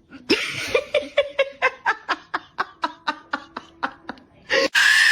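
Someone laughing in a quick run of short bursts, about four or five a second. Near the end a loud, high-pitched scream begins.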